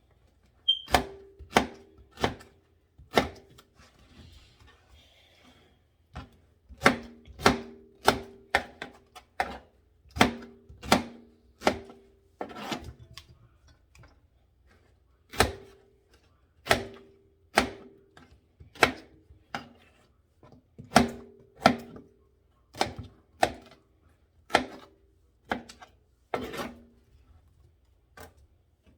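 Knife chopping pineapple on a cutting board: single sharp knocks about once a second, each ringing briefly, with two short pauses.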